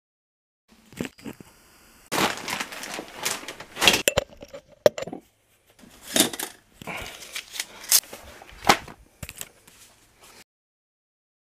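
A bundle of wooden popsicle sticks clattering and clacking together as it is handled, a run of sharp clicks and rattles. It starts about a second in and stops shortly before the end.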